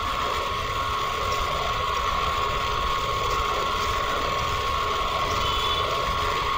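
Steady hiss with a constant high-pitched whine running underneath, the recording's background noise.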